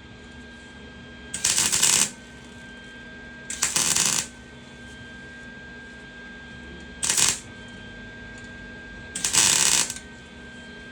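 Electric welding arc crackling in four short bursts of about half a second to a second each, with pauses of a couple of seconds between: a run of short welds or tacks. A steady faint hum runs between the bursts.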